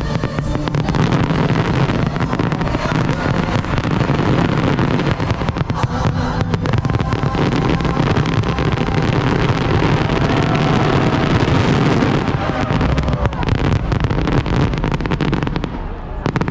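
Fireworks finale: a dense, continuous barrage of bangs and crackling over a deep rumble, easing slightly near the end.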